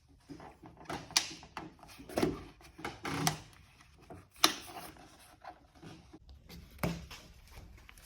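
Small plastic pieces and clips being pried and popped off a car door panel: several separate sharp clicks, the loudest about halfway through, between quieter rustling and handling.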